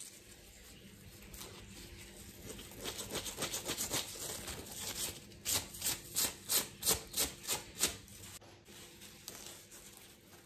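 Fresh pumpkin leaves rubbed and stripped by hand to peel the rough skin off their backs and stalks: a run of quick rubbing, tearing strokes. The strokes grow and are loudest in the middle, about three a second, then fade.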